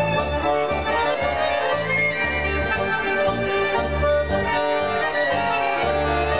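Accordion and electronic keyboard playing a tango live.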